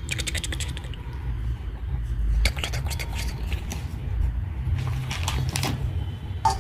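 Small plastic toy animal figurines clicking as they are handled: a quick run of clicks at the start, then scattered single clicks, over a low handling rumble.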